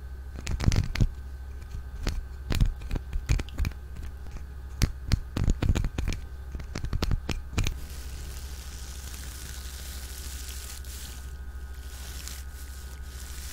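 Close-miked ASMR crackles: a run of irregular sharp clicks, scratches and crinkles for about eight seconds. These give way to a soft, steady hiss.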